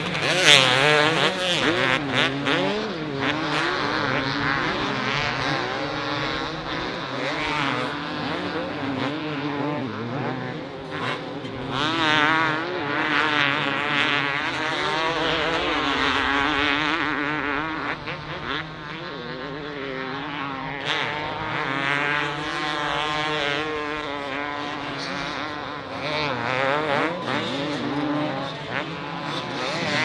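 Several two-stroke motocross bikes racing on the track, their engines revving up and down in overlapping, constantly shifting pitches.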